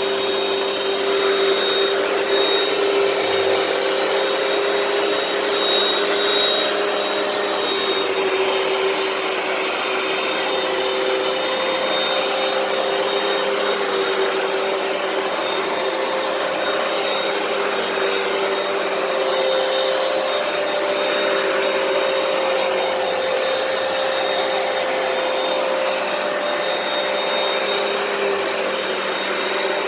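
Hoover PowerDash upright carpet cleaner running steadily: a motor whine over the rushing of its suction.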